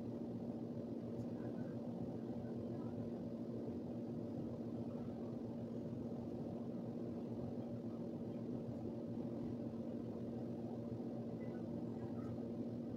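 Steady, faint low hum with one constant tone and no distinct events: background room or appliance hum.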